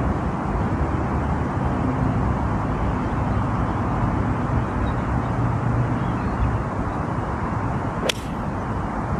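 A golf iron striking the ball once, a single sharp crack about eight seconds in, over a steady low rumble of background noise.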